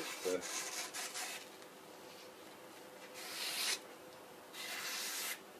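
A freshly sharpened kitchen knife slicing down through a sheet of paper held in the air, three strokes each making a short, dry hissing rasp: a paper-cutting sharpness test.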